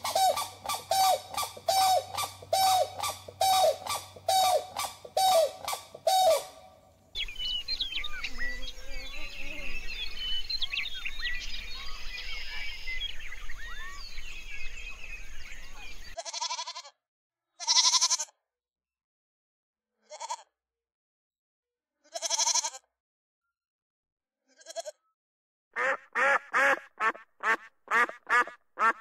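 A run of animal calls. For the first six seconds one animal gives repeated calls, about two a second. Then many small birds chirp for about ten seconds. After that a ruddy shelduck honks, single calls about two seconds apart, then a quick run of about three calls a second near the end.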